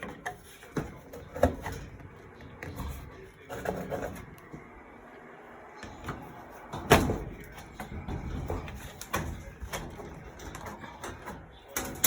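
Sheet-metal dryer panel being pried and worked loose: scattered clicks and knocks as its clips pop, with one loud knock about seven seconds in.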